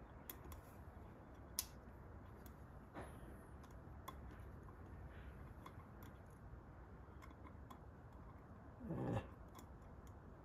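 Faint, scattered small metal clicks and taps of a magnet tool probing inside the top of a Keihin FCR carburetor, with one sharper click about one and a half seconds in. A brief low murmur near the end.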